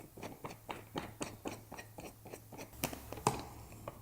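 End screws of a HighRoller foam roller being unscrewed by hand, giving a quick run of small clicks and scrapes, about four or five a second.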